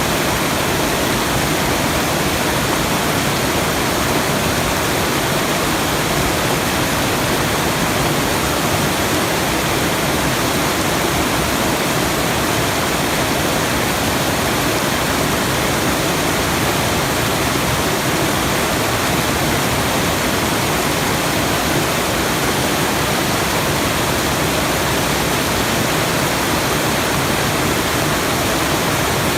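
Steady, unbroken rushing noise of falling water, like a waterfall, spread evenly from low to high pitch and never changing in level.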